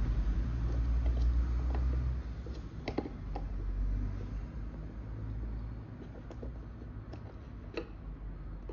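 Small hard clicks and taps of plastic and carbon-fibre parts being pressed and fitted together on a drone arm's motor mount, the clearest about three seconds in and another near the end, over a steady low rumble that is stronger in the first two seconds.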